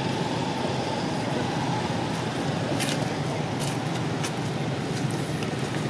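Steady outdoor background rumble, like distant road traffic, with a few faint high clicks scattered through it.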